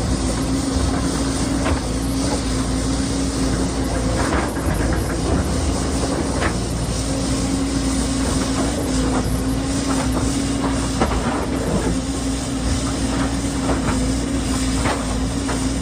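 Excavator working on rock: its engine runs steadily with a constant hum that drops out for a couple of seconds near the middle, while short knocks and clanks come at irregular moments.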